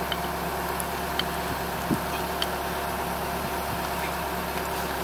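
Diesel engine idling steadily, with a few faint clicks and a soft knock about two seconds in.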